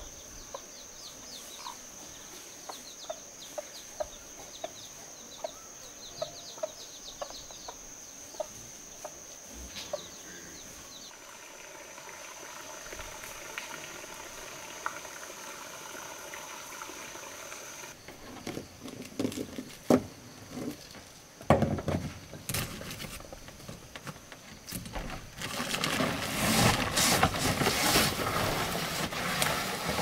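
A steady high insect drone, with chicks peeping over it for the first several seconds. Toward the end come irregular knocks, then louder rustling and thuds as a large woven sack is handled on a wooden floor.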